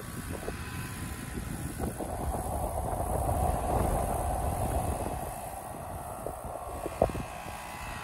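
Carrier Sentry 15 heat pump outdoor unit running in cooling mode: the condenser fan blows a steady whooshing hum that grows louder in the middle and eases off again. A single sharp click comes about seven seconds in.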